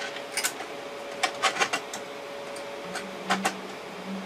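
Hard plastic clicks and taps as 3D-printed plastic flower stems are knocked and set into a printed plastic vase, in small clusters of quick clicks, over a faint steady hum.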